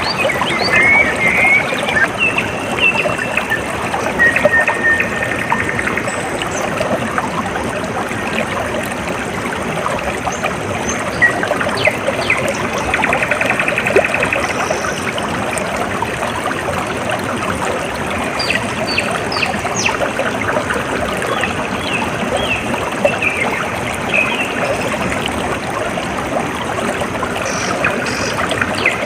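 Water trickling and flowing steadily in a stream, with birds chirping over it and giving several short, rapid trills.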